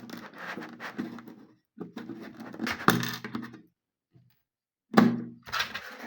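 Handling noise as a wall clock is moved about: scraping and rustling with a few sharp knocks, the loudest about five seconds in, over a low electrical hum.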